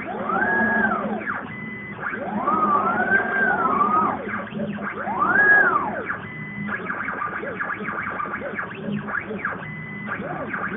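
Stepper motors of a homemade CNC machine whining in rising and falling pitch glides as the axes speed up and slow down through curved moves, with a few brief steady tones and a steady low hum underneath.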